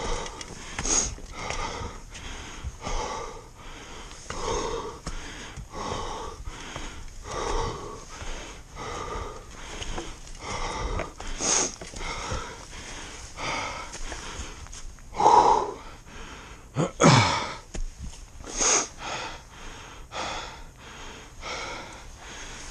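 A person's heavy, wheezy breathing while hiking hard uphill: quick, regular in-and-out breaths from exertion. About two-thirds of the way through come two louder gasps, the second a groan falling in pitch.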